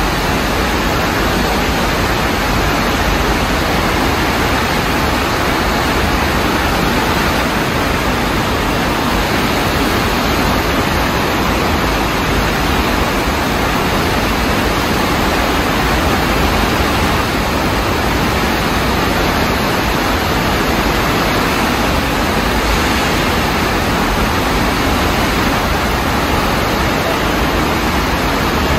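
A stream in flood after heavy rain: fast brown floodwater rushing steadily past concrete viaduct pillars, a loud, even, unbroken sound of running water.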